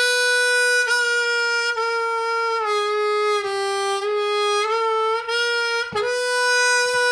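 Seydel 1847 Lightning diatonic harmonica, loud, playing one long note on hole 3 that is bent down step by step and then released back up to the unbent pitch about six seconds in. The bends sit cleanly and in tune, a sign the reeds need no adjustment.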